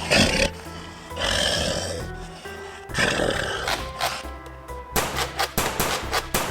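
Three growling roars, like a werewolf's, over background music, followed near the end by a rapid run of sharp clicks.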